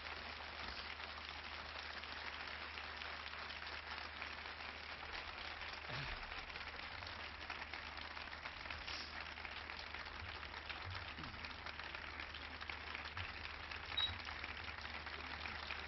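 Theatre audience applauding: many hands clapping in a steady, even patter.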